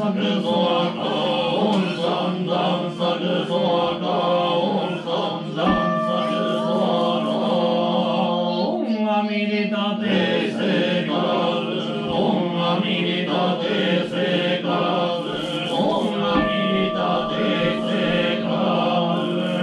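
Shingon Buddhist sutra chanting by male voices, a steady, low recitation on a near-constant pitch, with a short breath break about halfway through and a few scattered low drum beats.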